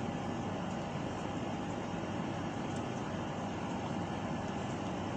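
Steady background hiss and hum with a faint constant tone, unchanging throughout; no distinct sipping or slurping sounds stand out.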